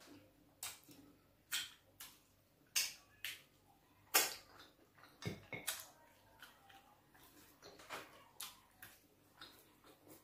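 Close-miked eating sounds of fufu and bitter leaf soup eaten by hand: irregular wet smacks and clicks of the mouth and chewing, the loudest a little after four seconds in.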